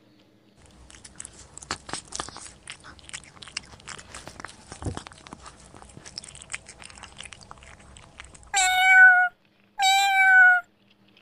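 A domestic cat crunching and chewing dry biscuits, a fast run of crisp crunches, then two loud meows about a second apart near the end, each held briefly and dropping slightly in pitch as it ends.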